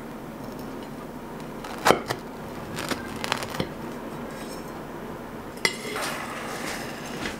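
Kitchen knife cutting through a crushed-biscuit tart crust: a few sharp crunches and clicks, the loudest about two seconds in, with a short scratchy scrape near the end.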